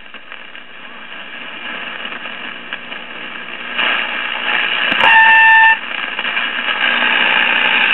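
1954 Arvin metal midget tube radio's speaker giving out AM static as the tuning dial is turned between stations, the hiss growing louder, with a brief steady whistle about five seconds in.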